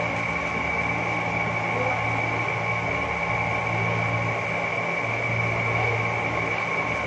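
Steady mechanical hum with a constant high whine over it, its low part swelling and easing every second or two.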